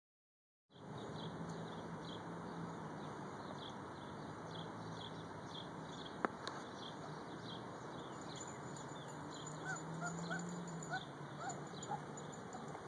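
Outdoor yard ambience: a steady hiss with a high chirp repeating about twice a second, a single sharp click about halfway, and a run of short rising chirps near the end.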